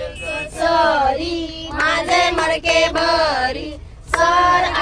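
Unaccompanied group singing by high voices, held melodic notes, as in a game of antakshari where a song is sung in turns.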